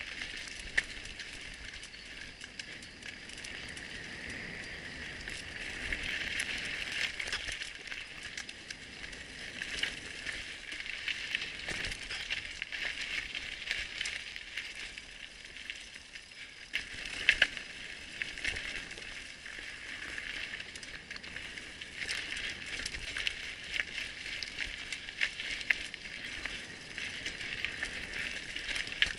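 Mountain bike riding over a dirt trail: a steady high hiss with scattered rattles, sharp clicks and knocks as the bike runs over bumps, the loudest knock about two-thirds of the way through.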